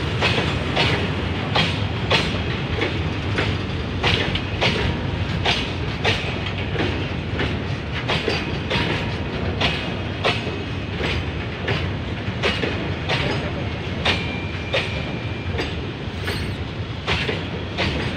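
BOXN open freight wagons rolling past close by, their steel wheels clacking over rail joints in a steady repeating rhythm over a continuous rumble.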